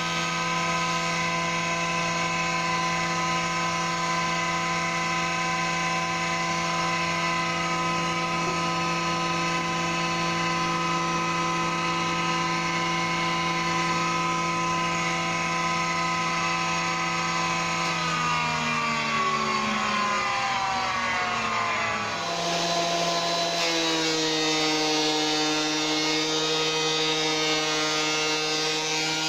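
Electric planer motor running at speed with no wood being cut, a steady hum. About 18 seconds in it winds down with falling pitch; about 22 seconds in a machine starts again and runs back up to a steady speed.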